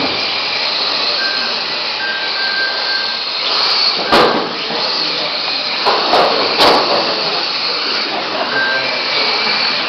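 Radio-controlled mini racing cars running on the track, a steady high motor whine whose pitch comes and goes as cars pass. There are a few sharp knocks about four seconds in and again around six and a half seconds.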